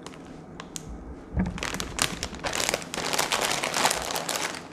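Potato chip bag crinkling as it is handled, a dense run of crackling starting about a second and a half in.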